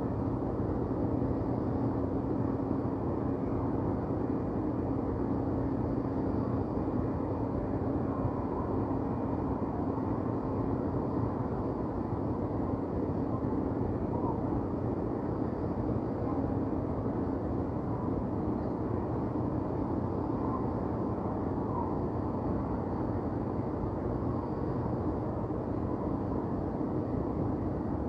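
Steady city ambience: an even, low rumble of distant traffic and urban machinery with a constant hum underneath and no distinct events standing out.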